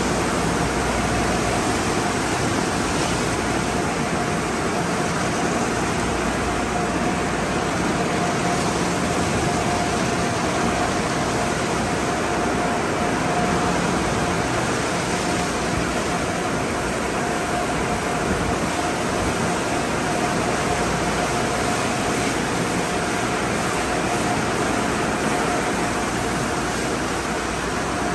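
Sonny's tunnel car wash running: spinning cloth wrap and top brushes scrubbing a car amid water spray, a steady, unbroken wash of noise with a constant whine from the machinery.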